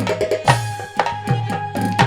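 Haryanvi ragni accompaniment without singing: hand drums playing a quick pattern, with deep bass strokes that bend in pitch, over a steady held reed tone.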